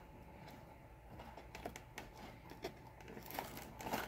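Faint scattered clicks and scratches of fingernails picking at clear packing tape on a cardboard box, working to lift its edge.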